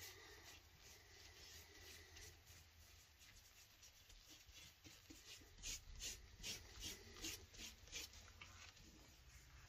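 Faint scratching and rubbing, with a run of short scraping strokes in the second half over a low background hum.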